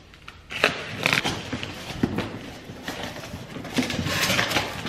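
A cardboard box being opened: a folding knife slitting the tape, then the cardboard flaps scraping and rustling as they are pulled open. Sharp scrapes and knocks begin about half a second in, and the rustling grows near the end.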